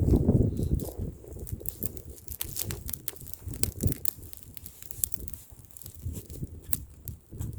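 Wood bonfire crackling, with many small sharp pops scattered through. A low, gusting wind rumble on the microphone underlies it, loudest in the first second.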